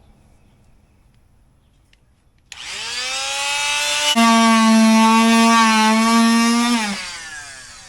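Fein MultiMaster oscillating multi-tool starting about two and a half seconds in, its buzz rising in pitch, then running loud and steady while cutting rotten wood out of a door jamb. It is switched off near the end and winds down with a falling pitch.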